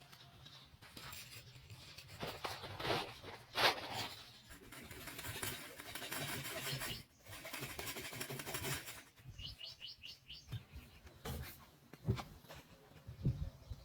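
Scraping and rubbing noises with a few sharp knocks, then a bird chirps a quick series of about six short notes, followed by a couple of dull thumps near the end.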